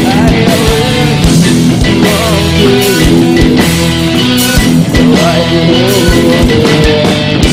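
A rock band playing live: an electric guitar lead line over bass, rhythm guitar and drums with a regular kick-drum beat and cymbals.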